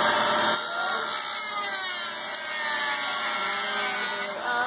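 Handheld rotary tool with a small abrasive disc grinding plexiglass (acrylic). It makes a steady rasping grind, and its whine slides gradually lower in pitch from about half a second in until near the end.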